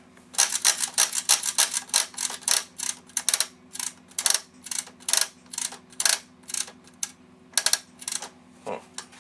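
Vintage Commodore manual typewriter clacking: a quick run of sharp key strikes, about four or five a second at first, then slower and more spaced out toward the end.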